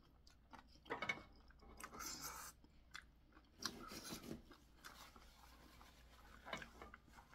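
Soft close-miked chewing of a mouthful of spicy boneless chicken feet, wet mouth noises coming in several short bursts with quiet gaps between.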